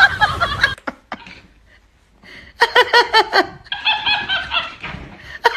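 High-pitched laughter in quick repeated 'ha-ha' pulses, coming in two or three short runs of about a second each. Under a second in, a voice with music cuts off just before the laughter.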